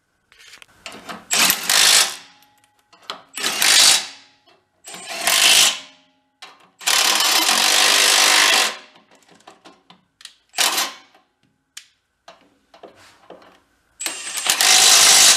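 Small cordless impact wrench running bolts down in about six bursts, the longest about two seconds in the middle, hammering as the bolts tighten.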